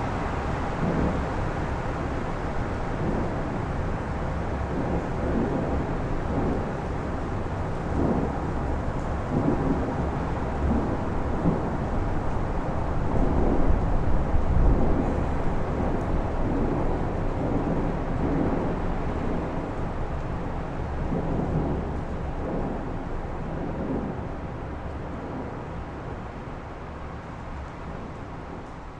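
Strong wind gusting, a deep rumble with most of its weight in the low end. It swells to its loudest about halfway through, then slowly fades out near the end.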